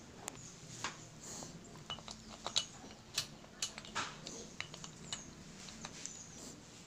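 Light, irregular clicks and clinks of metal motorcycle engine parts being handled by hand: a Yamaha R15 engine side cover with its bearing being turned and fitted, with a few sharper clinks of metal on metal.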